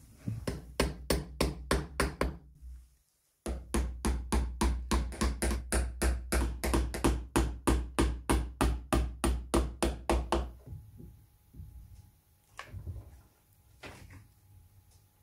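Rhythmic knocking on a straw rocking horse's head as the mane strip is tapped down onto it, about four knocks a second in two runs broken by a short silent gap a few seconds in. A few faint handling clicks follow near the end.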